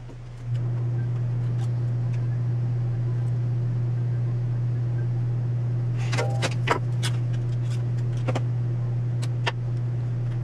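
A steady low electrical hum comes on suddenly about half a second in and holds, with a cluster of small clicks and taps around six to seven seconds in and a few more later as a wire is handled on a circuit board.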